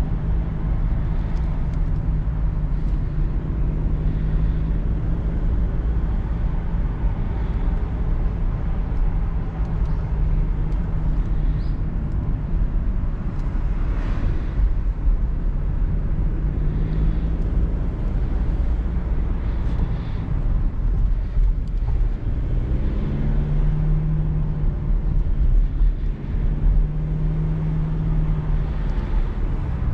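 Mercedes-Benz E220d cabriolet driving with the roof down: steady hum of its four-cylinder diesel engine under wind and tyre noise, the engine note fading and coming back a few times in the second half.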